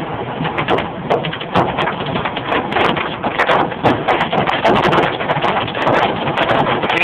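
Dime-sized hail pelting a car's roof and windshield, heard from inside the car: a dense, fast clatter of sharp ticks over a steady hiss.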